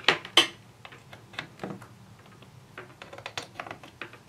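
Plastic clicks and taps of a temperature probe's plug being pushed into the input jacks of a Zotek ZT111 palm-size multimeter, while the meter is handled on the table: two sharper clicks right at the start, then a run of small light clicks.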